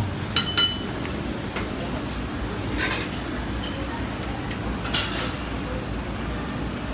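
A metal spatula clinks sharply against a flat dosa griddle four times, twice close together near the start and then twice more a few seconds apart, over a steady murmur of street-stall background noise and voices.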